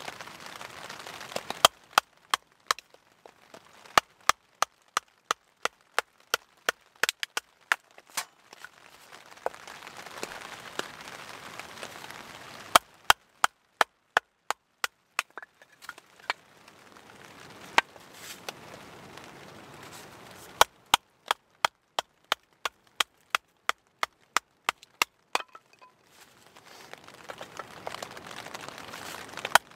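Firewood being broken down by hand: stretches of sawing with a Laplander folding saw alternate with runs of sharp wooden knocks, about two a second, which are the loudest sounds.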